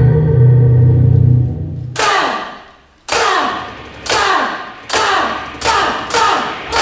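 A low, sustained bass note runs for the first two seconds and cuts off. Then come heavy percussive beats, each echoing, that start about a second apart and speed up steadily.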